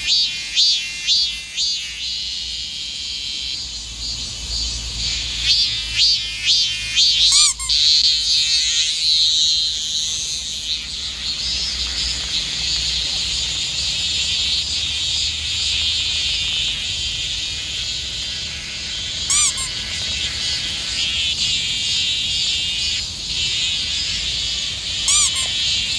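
Cicadas singing: a loud, shrill buzzing chorus that pulses rapidly at first, then settles into a steadier drone. Three brief rising squeaky calls cut in over it.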